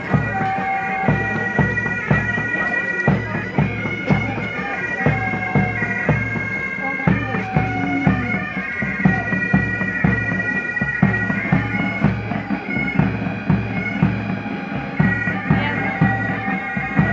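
Military pipe band playing a march: bagpipes sounding a melody over their steady drones, with drums beating about two strokes a second.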